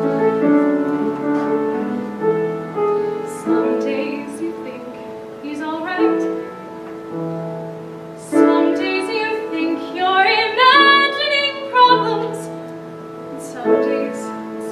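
Female voices singing a musical-theatre song over piano accompaniment, the singing swelling into a louder, held passage with vibrato past the middle before easing back.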